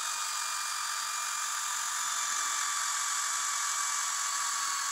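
Smart water shut-off valve's electric actuator motor running as it closes the valve: a steady high whine with several overtones, sinking very slightly in pitch.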